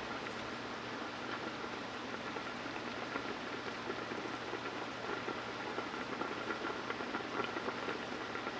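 Stock pot of apple juice, broth and turkey at a boil: dense, steady bubbling and crackling, with a faint steady high tone.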